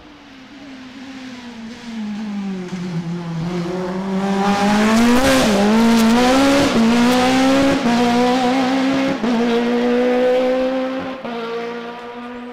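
A hillclimb race car passing close at racing speed. Its engine note drops, then climbs again through several quick gear changes, getting loud as the car comes by and fading as it moves away.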